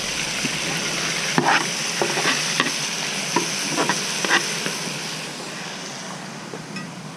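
A spoon stirring a garlic, onion, tomato and cilantro mixture in a frying pan, scraping and knocking against the pan several times over a steady frying sizzle. The sizzle fades toward the end.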